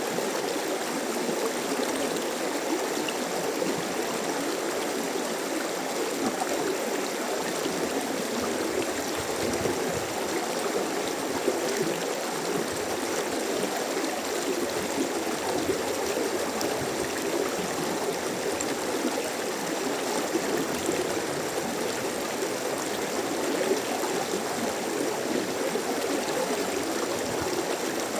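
Mountain stream rushing steadily over rocks, a constant even water noise without pauses.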